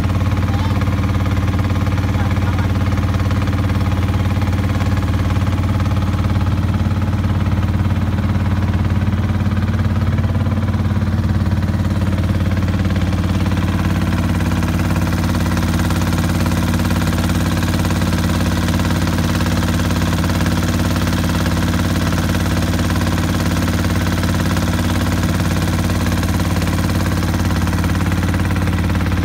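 Small wooden motorboat's engine running steadily while under way: a constant low drone with several steady overtones.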